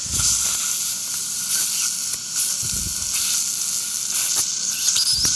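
Surgical suction tip running steadily with a high hiss, with a few brief crackles as it draws up blood and fluid at the surgical site.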